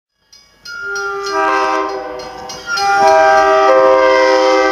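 Commuter train's multi-chime air horn sounding two long blasts, the second louder and held past the end, with several steady notes together.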